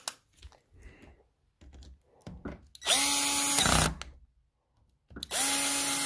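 Cordless drill driving a screw in a door's latch plate: two runs of about a second each, the motor spinning up quickly to a steady whine each time, with faint handling clicks before them.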